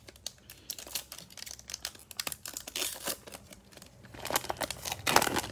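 Foil wrapper of a Mosaic basketball card pack being torn open and crinkled by hand: a dense run of crackles, with a louder burst of crinkling near the end as the cards are pulled out.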